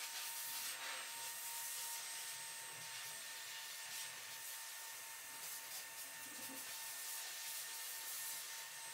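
Grooming scissors and comb working through a dog's long fluffy coat: irregular soft scratchy rubbing and snipping, over a faint steady high-pitched whine.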